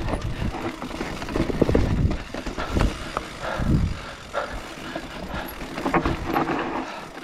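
Mountain bike being ridden on a trail: tyre noise with irregular knocks and thuds from the bike.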